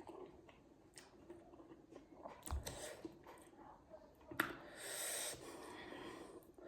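Faint close-up eating sounds: chewing and small mouth clicks while momos are eaten. There is a low thump about two and a half seconds in and a breathy rush of air around the fifth second.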